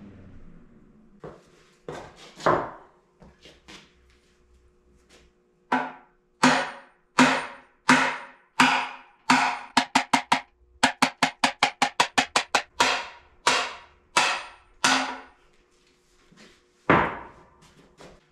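Hammer blows on a bearing driver, knocking a balancer-shaft bushing out of a CAT D4D engine block: sharp metal strikes with a ringing tone behind them. A few scattered knocks come first, then a steady run of blows about one and a half a second, quickening to about three a second for a spell, and one last heavy blow near the end.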